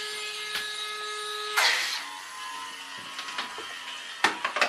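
Small coreless electric motor of a toy water-jet boat whining steadily, then a splash about one and a half seconds in as the boat drops into the bath water, after which the motor runs on at a lower pitch. A few sharp knocks near the end.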